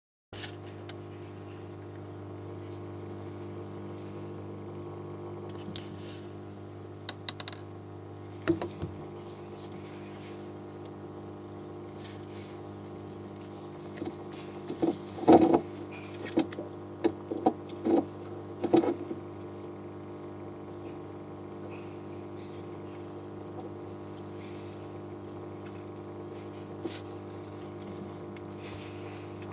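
Hermit crab shells clicking and knocking against one another as a crab climbs over the others: a few sharp clicks, then a quick run of them in the middle, over a steady low hum.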